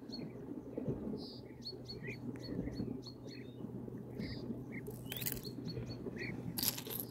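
Small birds chirping, short high calls repeating every fraction of a second, with two brief rustles about five and seven seconds in.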